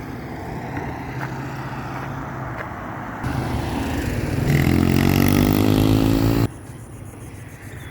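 Road noise with a motor vehicle engine accelerating: its pitch rises and it grows louder for about two seconds, then the sound cuts off abruptly.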